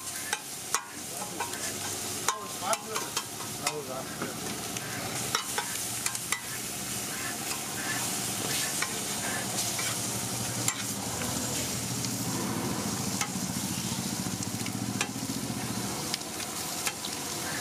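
Fish and masala frying on a hot flat tawa griddle, sizzling throughout, with a metal spatula clacking and scraping against the griddle. The sharp clacks come thick and fast for the first six seconds or so, then thin out to occasional strikes while the sizzle carries on.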